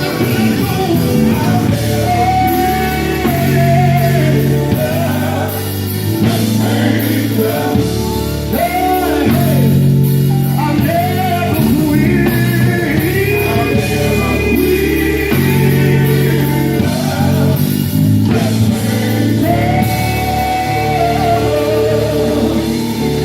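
Gospel group singing with band accompaniment: voices holding long, wavering notes over guitar and a bass line that changes every couple of seconds.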